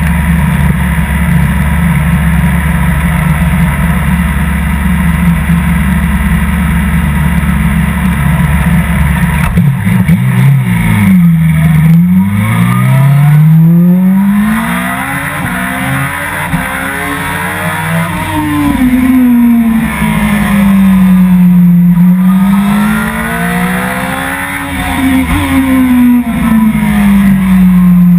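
Suzuki GSX-R1000 sport bike's inline-four engine from onboard. It runs at a steady pitch for about the first nine seconds, then accelerates hard: the pitch climbs and drops at each gear change, then rises and falls repeatedly with the throttle through the corners.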